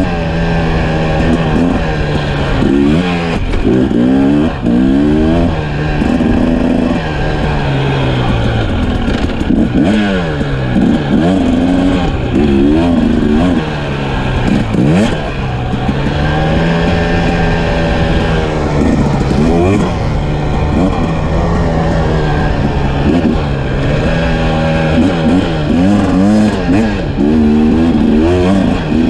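Dirt bike engine revving hard, its pitch climbing and dropping again and again as the rider throttles and shifts through the gears at speed, with a low rush of wind and road noise underneath.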